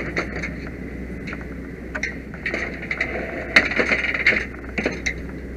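Metal firefighting gear being handled at the fire truck: scattered clicks and knocks, with a burst of clanking and rattling about three and a half to four and a half seconds in, over a steady low hum.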